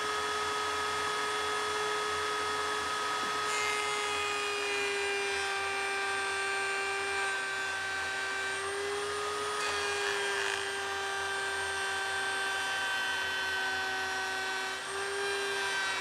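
Router in a router table running a profile bit while a board is fed past it, a steady high motor whine that shifts slightly in pitch a few times as the bit cuts.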